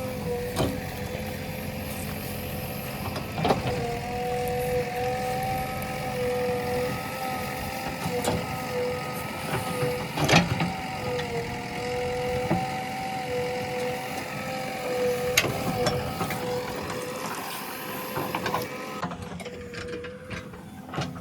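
JCB 3DX backhoe loader working, its engine and machinery running with a steady whine, with a few sharp clanks scattered through. The higher hiss drops away near the end.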